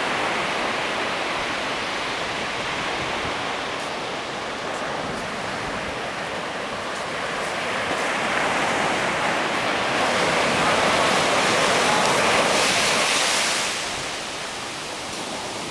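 Sea surf breaking and washing up a sandy beach, a steady rushing that swells louder about halfway through and falls away sharply near the end.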